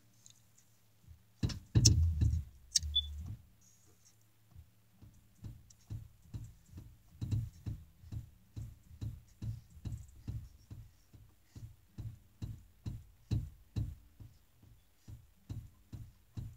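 Hip-hop instrumental beat playing with no vocal over it: a loud deep bass hit about two seconds in, then a steady run of low kick-drum thumps, about two or three a second, from about five seconds on.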